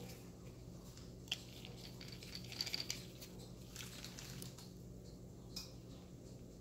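Small capped glass broth vial being handled: faint clicks, with a short cluster of light glassy clinks about two and a half seconds in, over a steady low hum.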